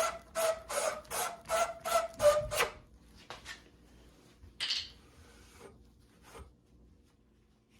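A brush scrubbing the end of a copper pipe to clean off old solder, in quick back-and-forth strokes about three to four a second, then a few slower single scrapes before it stops.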